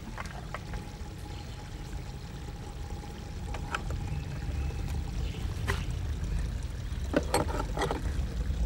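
Fuel poured from a red jerry can into a chainsaw's tank, a steady pouring that gets louder partway through. Near the end come a few sharp clicks and knocks from the can and the saw being handled.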